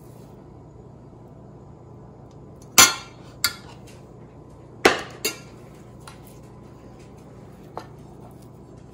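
Metal spoon knocking against a stainless steel pan while scooping chicken filling: four sharp clinks in two pairs, about three and five seconds in, then a couple of faint taps.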